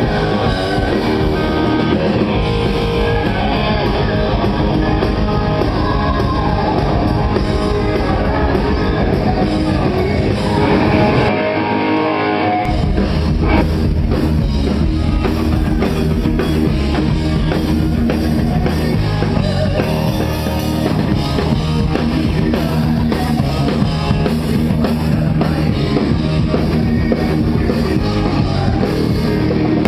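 A rock band playing live on stage: electric guitar over drum kit and bass, loud and dense. About eleven seconds in, the bass and drums drop out for a moment, then the full band comes back in.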